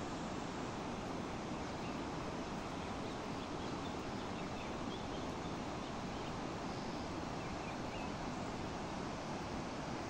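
Steady rushing roar of a muddy mountain river in spate, even and unbroken, with a few faint high chirps in the middle.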